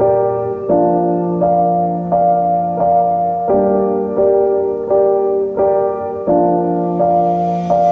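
Background music: a soft piano playing slow sustained chords, changing about every three quarters of a second.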